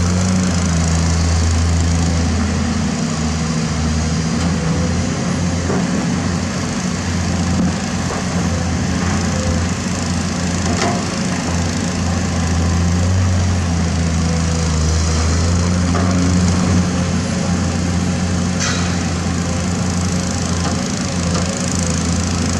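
Komatsu PC210-10 excavator's diesel engine running under working load, a steady hum that dips and picks up again a few times as the arm and bucket move. A few sharp knocks stand out, about eleven seconds in and again near the end.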